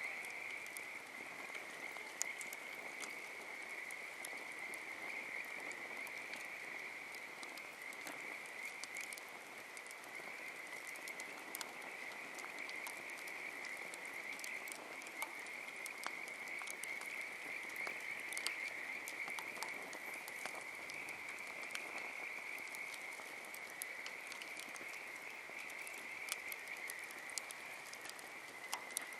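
Campfire crackling with scattered sharp pops, over a steady, continuous high-pitched chorus of calling animals.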